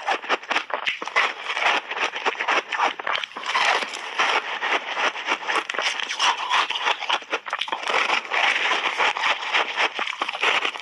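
Close, continuous crunching and crackling of a crunchy compressed ice roll coated in passionfruit pulp being bitten and chewed, a rapid run of brittle cracks with no pause.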